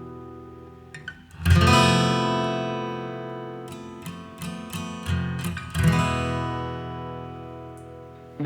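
Background music: acoustic guitar strummed chords that ring out and fade, with a fresh strum about a second and a half in and another near the end.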